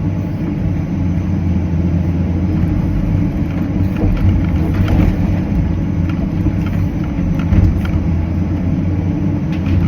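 Cat 325CL excavator's diesel engine running steadily under working load, with a few short knocks from the machine while it works.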